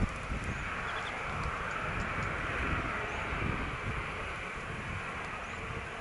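Boeing 737-900ER's CFM56-7B turbofan engines at taxi power as the airliner taxies toward the microphone: a steady rushing jet hiss over a low, uneven rumble.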